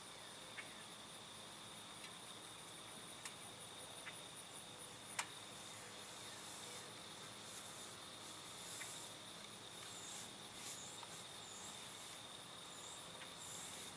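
Faint, steady high-pitched insect trill from crickets. From about halfway on, soft intermittent swishes come and go as a paint brush is stroked along the wooden eave trim.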